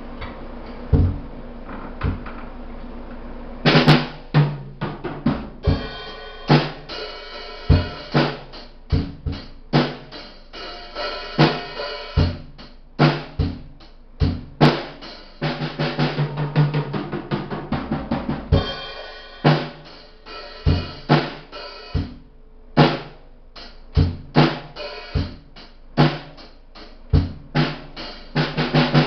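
Tama Imperialstar drum kit being played: two lone bass drum kicks, then from about four seconds in a steady beat on bass drum and snare under ringing cymbals.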